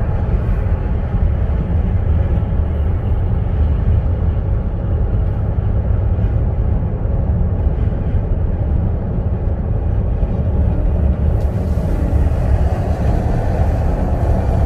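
A car driving, with a steady low rumble of engine, road and tyre noise. A higher hiss joins in about eleven seconds in.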